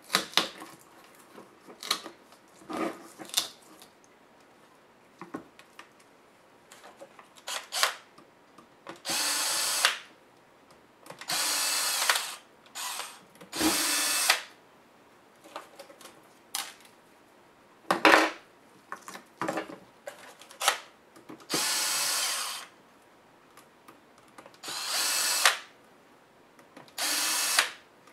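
Cordless drill-driver spinning out the small screws of a laptop LCD panel's hinge brackets, in six short runs of about a second each. Sharp clicks and knocks of small metal and plastic parts being handled fall between the runs.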